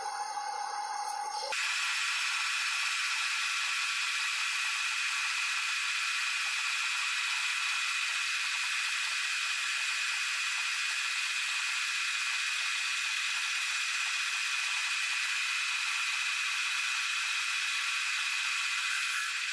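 Metal lathe turning a steel shaft, its cutting sound played back at triple speed: a steady high hiss with a thin whine.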